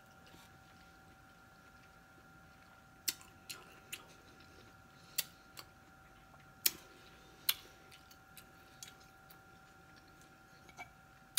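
A person chewing fresh, raw-crisp broccoli florets, with scattered sharp crunches and wet mouth clicks, over a faint steady high hum.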